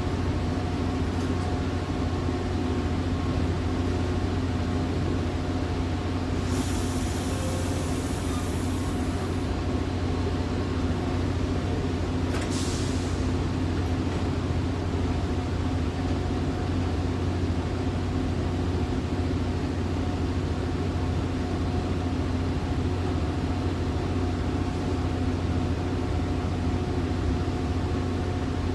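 Steady low hum with several fixed tones inside a Budd-built Metra commuter coach. A loud hiss of released air comes about six and a half seconds in and lasts about three seconds, and a shorter hiss follows near twelve and a half seconds.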